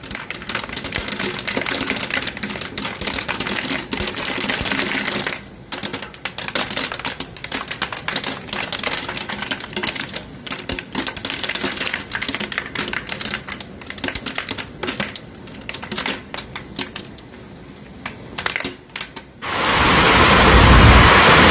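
Hailstones striking roofs, railings and the ground in a dense, rapid clatter of ticks. About two seconds before the end it gives way to a louder, steady rush of heavy rain.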